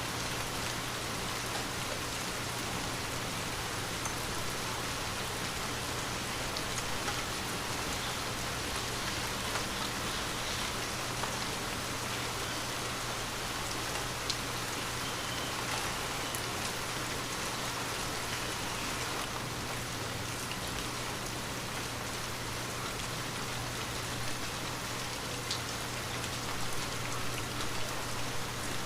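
Light rain falling steadily, with scattered individual drops ticking, over a steady low hum.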